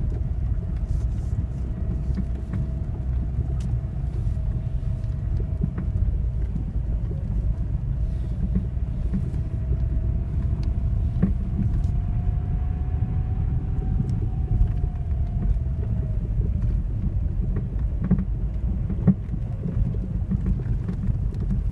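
Lada Vesta SW Cross on the move: steady low road rumble with scattered sharp knocks from the front suspension. The knock persists even with new TRW stabilizer links and new stabilizer bushings and brackets fitted. A faint engine or drivetrain tone rises gently and then falls away.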